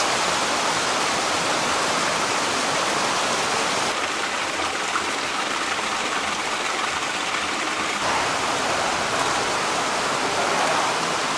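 Water pouring steadily from pipes into an eel farm tank, a continuous splashing rush.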